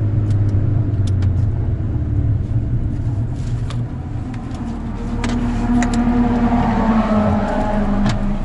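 VW Golf 6R's turbocharged four-cylinder engine heard from inside the car, holding a steady note, easing briefly, then rising in pitch as it accelerates through the second half. Scattered sharp clicks sound over it.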